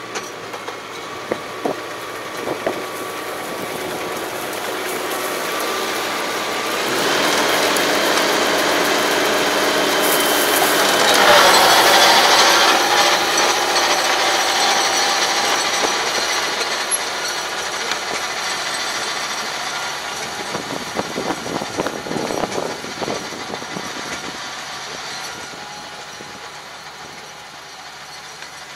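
Tractor diesel engine running under load with a rotary tiller churning stubble and soil, its tone stepping up about seven seconds in, loudest as it passes close by around twelve seconds, then fading as it drives away. Scattered sharp clicks and knocks come through early on and again after twenty seconds.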